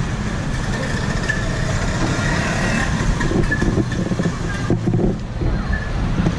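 Street traffic noise dominated by a motor vehicle engine running close by, a steady low rumble with a brief lull about five seconds in.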